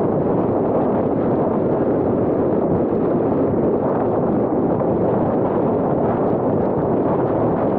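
Steady rush of driving wind over a small action camera's microphone on a car moving at highway speed, blended with road noise.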